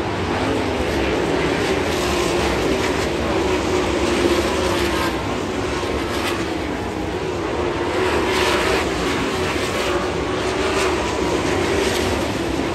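A pack of winged dirt-track sprint cars racing around the oval, their V8 engines running hard together in a continuous drone whose pitch wavers as the cars go through the turns and pass by.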